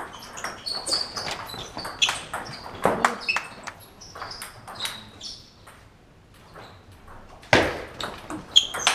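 Table tennis balls clicking off bats and the table in a doubles rally, an irregular run of short, sharp ticks, with one louder noise about seven and a half seconds in.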